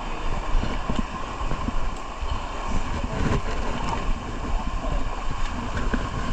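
Steady rushing of flowing river water, with wind and buffeting rumbling on the microphone.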